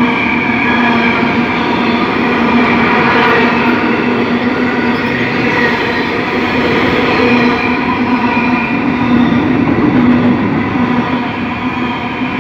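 Intermodal freight train's container wagons rolling past close by: a steady, loud rumble of steel wheels on rail, with a held hum of steady tones running through it.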